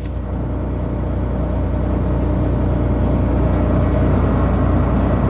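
Combine harvester running steadily: a low, even engine drone.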